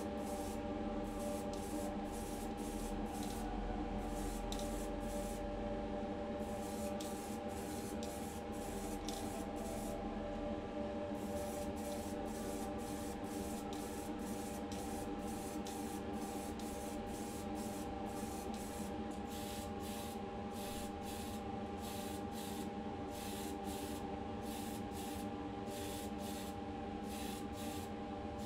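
Aerosol spray paint can hissing in short, repeated bursts as small diecast parts are given primer and then colour coat. The bursts come about one to two a second, quicker toward the end, over a steady hum.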